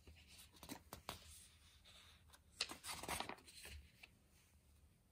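Soft rustling of paper as pages of a printed user's manual are handled and turned, in two spells, the second a little louder.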